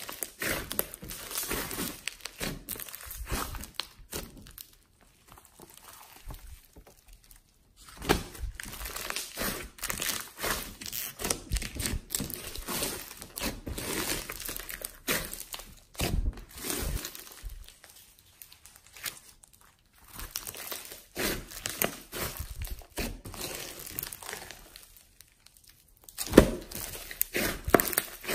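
Hands squeezing, pressing and stretching a large foam-bead slime (floam), the beads crunching and crackling densely. It comes in spells with a few short pauses.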